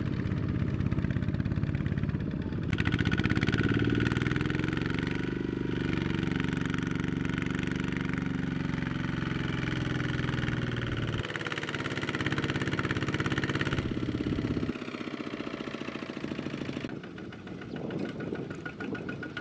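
Kubota ZT140 single-cylinder diesel engine of a two-wheel power tiller running under load while the machine is bogged in deep mud. It revs up a few seconds in, then drops back to a lower, quieter running near the end.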